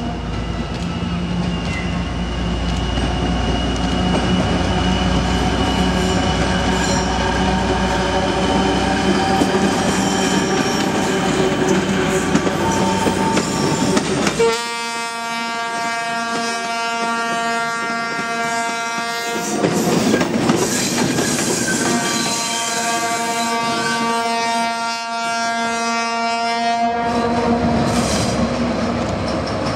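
ČKD T 679.1 (M62 "Sergej") diesel locomotive's two-stroke V12 engine running loud and steady as it pulls a passenger train away. About halfway through, a locomotive horn sounds two long, steady blasts of about five seconds each, with a short rush of train noise between them.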